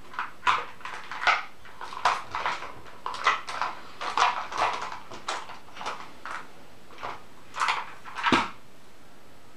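A Magic: The Gathering deck being shuffled by hand: a run of short, irregular card snaps and rustles that stops about a second before the end.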